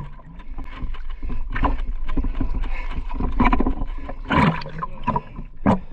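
Water sloshing and splashing irregularly around a camera held at the water's surface, over a steady low rumble, with a stronger splash about four and a half seconds in.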